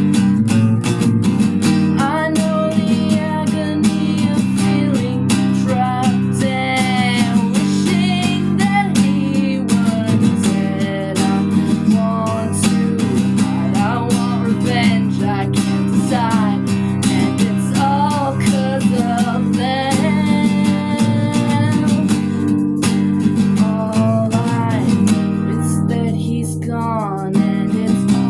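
Music: strummed acoustic guitar chords with a wavering melody line over them.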